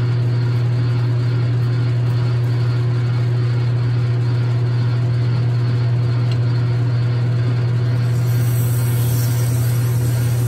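Logan 6560 metal lathe running with a steady low hum while a twist drill in the tailstock bores into a spinning nylon bar. A high hiss joins near the end.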